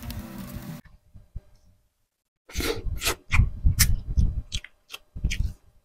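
Music cuts off about a second in. After a short silence come close-miked eating sounds: wet chewing and sharp lip smacks, one after another, as grilled tuna jaw meat is eaten off the bone.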